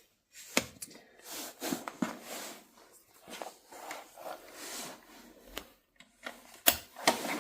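Handling noise and scattered light plastic clicks as Ethernet patch-cable RJ45 plugs are pushed into a Cat6 socket and a cable tester; the sharpest clicks come about half a second in and near the end.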